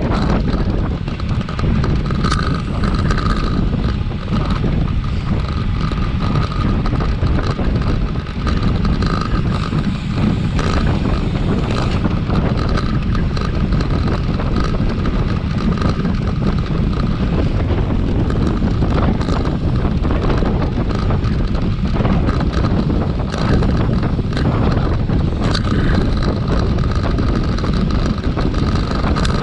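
Wind buffeting the microphone: a continuous low rumble that stays steady throughout.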